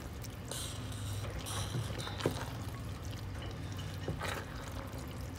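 Spatula stirring a thick, wet mixture of crawfish tails, vegetables and roux in a Calphalon pot: soft squelching and scraping in short spells, over a steady low hum.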